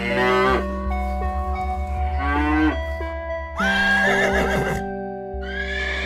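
A cow mooing several times over background music.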